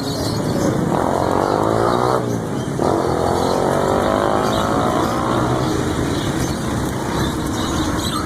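Street traffic, with a motor vehicle's engine running past. Its pitch falls about a second in, then again from about three seconds in.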